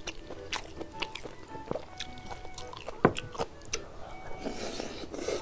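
Background music with close-up eating sounds over it: a spoon clicking and scraping in a glass bowl of mixed rice, with one sharp click about three seconds in the loudest, then a large spoonful taken into the mouth and chewed near the end.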